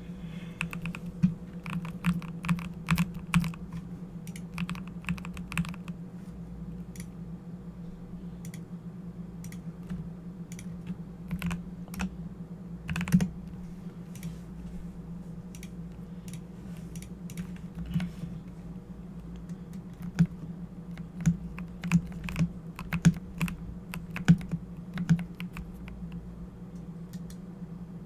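Corsair computer keyboard being typed on in irregular bursts of key clicks, with sparser stretches between the busier runs. A steady low hum runs underneath.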